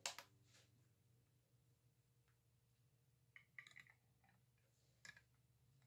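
Faint clicks and light knocks of a screw lid being set on and twisted onto a glass pickle jar: a sharp click at the very start, a small cluster of clicks about three and a half seconds in, and one more near five seconds.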